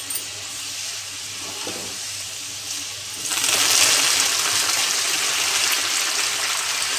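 Hot peanut oil sizzling in a metal kadai around a frying tempering of dals, red chillies and small onions. About three seconds in, a handful of chopped coriander leaves goes into the oil and the sizzling turns suddenly much louder and stays so.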